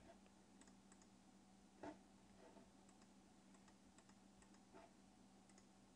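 Near silence with faint, scattered clicks of a computer mouse and keyboard, one a little louder about two seconds in, over a faint steady electrical hum.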